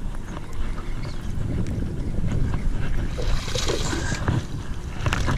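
Gusty wind buffeting the microphone, a heavy, uneven low rumble, with scattered clicks and knocks and a short hiss about three seconds in.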